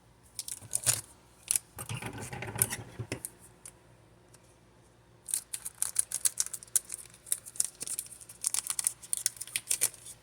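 Pokémon card packaging and cards being handled: crinkling and clicking, a short burst in the first few seconds, a pause, then rapid crackling from about halfway through.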